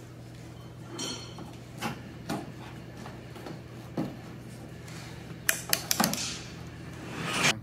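Scattered light clicks, taps and scrapes as a plastic trim tool pries the rubber seal and glass headlight cover off a Jaguar E-Type's headlight scoop, with a cluster of sharper clicks about five and a half seconds in and a rising scrape near the end. A low steady hum runs underneath.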